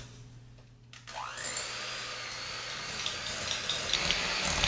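Electric hand mixer switched on about a second in, its motor whine rising as it spins up and then running steadily as the beaters work through a block of cream cheese in a glass bowl. Scattered clicks join in near the end as the beaters knock against the bowl and the lumps.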